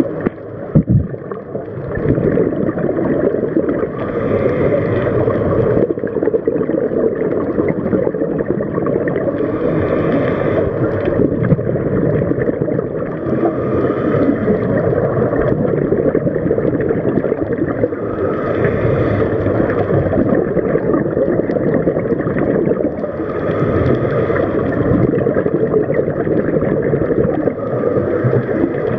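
Underwater scuba breathing: a diver's regulator with a gurgle of exhaled bubbles about every four to five seconds over a steady low rumble. A single sharp knock about a second in.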